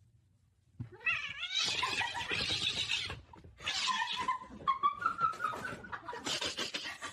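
A cat caterwauling: harsh, raspy yowls in several bouts starting about a second in, with a drawn-out wail that slowly rises in pitch around the middle.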